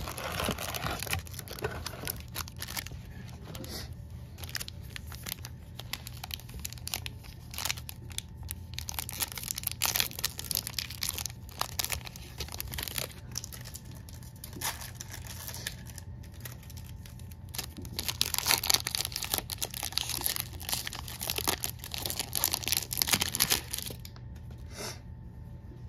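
Crinkling and tearing of a plastic baseball-card pack wrapper being opened by hand, loudest in bursts about three-quarters of the way through. The cardboard card box is handled at the start.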